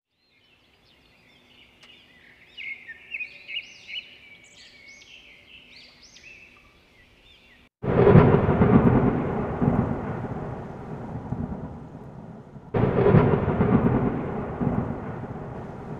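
Faint bird chirps, then two loud thunder-like rumbles. Each starts suddenly and fades away over a few seconds, the second about five seconds after the first, as the intro sound effect of a channel logo.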